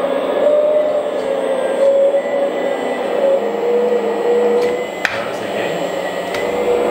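Hydraulic pump of a 1/14 scale RC front-shovel excavator whining steadily as the bucket is worked, its pitch dipping slightly about three seconds in. A sharp click about five seconds in.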